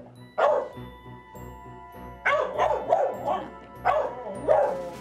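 A dog barking at the front door at a visitor's knock: one bark just after the start, then a quick volley of barks in the middle and two more near the end. Soft background music plays in the gaps.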